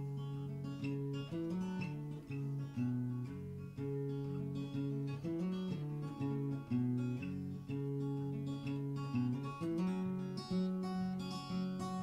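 Acoustic guitar played fingerstyle, instrumental with no singing: picked notes over a moving bass line, the strings left ringing.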